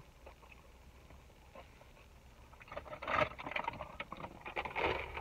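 A paper takeout bag crinkling and rustling as it is handled, in two bursts: one about three seconds in and a shorter one near the end.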